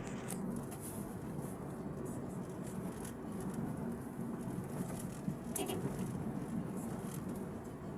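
Honda Dimension car running, a steady low hum with a few light clicks and ticks on top.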